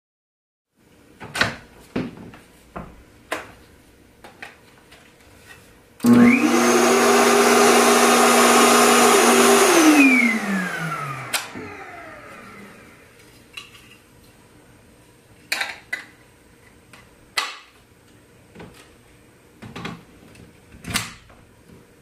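Kenmore 81214 canister vacuum's motor switched on about six seconds in, running steadily for about four seconds, then switched off and winding down with a falling whine. Before and after it come clicks and knocks of the telescoping metal wand and handle being handled.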